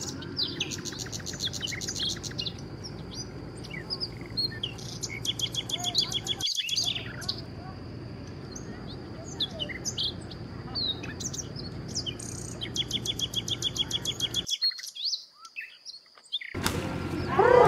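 Birds chirping and trilling in repeated rapid runs of short high notes, over a steady high tone and a low rumble of outdoor noise. The sound drops out for about two seconds near the end, then a louder burst of noise comes just before the end.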